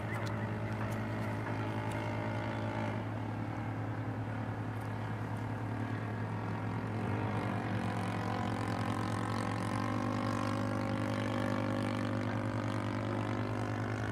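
Motor and propeller of a radio-controlled scale Fokker D.VIII model airplane in flight. Its pitch drops about three seconds in and rises again, growing a little louder, from about seven seconds in with throttle changes, over a steady low hum.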